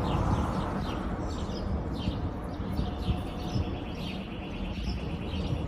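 Low rumble of an aircraft passing overhead, mixed with wind on the microphone, while small birds chirp repeatedly over it in short falling notes, with a quick trill about four seconds in.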